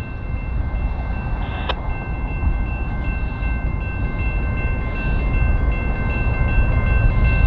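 Union Pacific diesel locomotive leading a freight train, approaching slowly, its low engine rumble growing louder, with a faint steady high whine over it. A single short knock comes about two seconds in.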